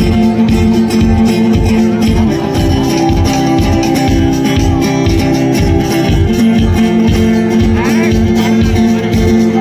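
Loud background music with a steady beat and guitar.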